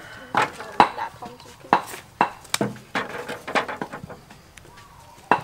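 A string of sharp, irregular knocks and clinks as hard pieces of fuel are set by hand into a metal drum stove.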